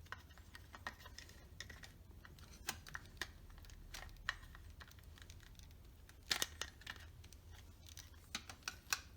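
Plastic parts of a Dyson DC50 vacuum's brush-roll switch housing clicking and tapping as they are handled and fitted together. A few louder clicks come about six seconds in and again near the end.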